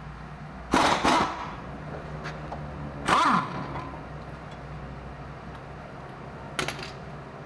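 Loud metal clanks from tools and parts being handled: two close together about a second in, another about three seconds in with a brief falling ring, and a lighter one near the end.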